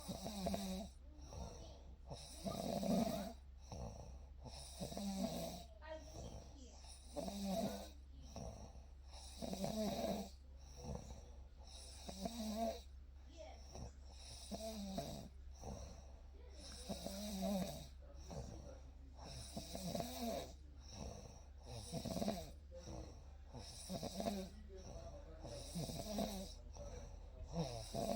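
A sleeping person snoring in a steady rhythm, one snore every second or two.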